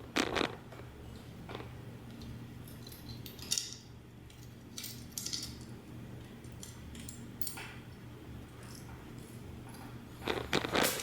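Scattered light metallic clinks and rattles of a steel ceiling-fan mounting bracket and its screws being handled, over a steady low hum.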